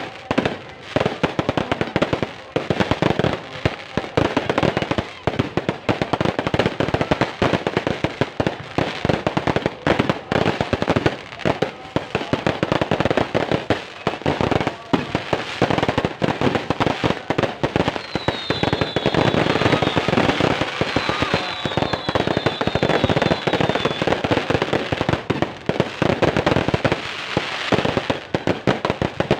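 Fireworks and firecrackers going off in a dense, continuous barrage of bangs and crackling. About two-thirds of the way through, a run of short, high, falling whistles sounds over the bangs.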